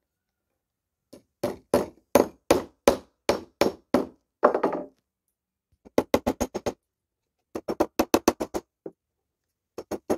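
Claw hammer driving nails through the rim of a plastic meter base into a wooden form board: runs of quick, sharp, ringing strikes with short pauses between them, the first run about a dozen blows long.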